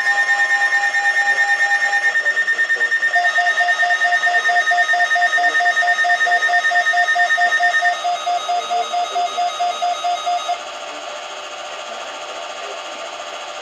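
Several NOAA weather radio receivers sounding their alert alarms at once: overlapping electronic beeps at different pitches, about five a second, set off by the weekly warning alarm test. The loudest beeping stops about eight seconds in and a second one about ten seconds in, leaving fainter beeping.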